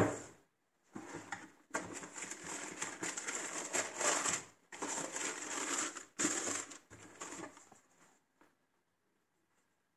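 A sharp thump at the very start from the cardboard shoebox, then tissue paper crinkling and rustling in uneven bursts as it is folded back from the sneakers, stopping about eight seconds in.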